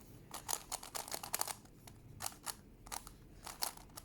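Plastic Megaminx puzzle clicking as its faces are turned quickly, in irregular runs of sharp clicks.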